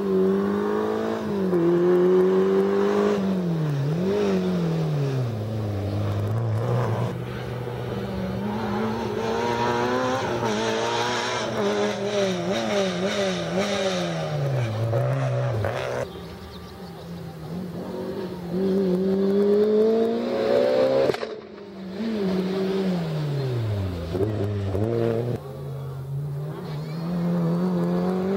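Small rally hatchbacks' petrol engines (a Peugeot 205, a Citroën, a Renault Clio) revving hard on a special stage, one car after another. The engine note climbs and drops again and again through gear changes and lifts off the throttle, with abrupt cuts from one car to the next.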